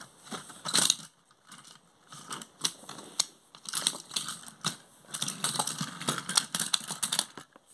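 Irregular clicks and knocks of a toy engine and tender being turned and shifted on a small wooden-railway turntable with a red disc, the engine's wheels and the turntable clattering against the wooden track pieces.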